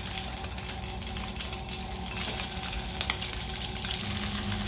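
Marinated chicken cubes frying in hot oil in a nonstick wok: a steady sizzle full of small crackling pops.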